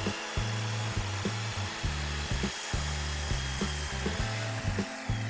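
Electric miter saw running at full blade speed with a steady high whine. Near the end the motor is switched off and the whine falls as the blade spins down.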